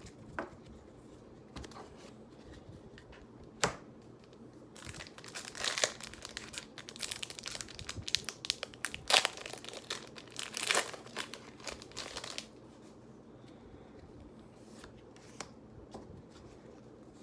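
Packaging of a Pokémon card single blister pack crinkling and tearing as it is opened, with a sharp click about three and a half seconds in. The crinkling runs for about eight seconds and stops near the end.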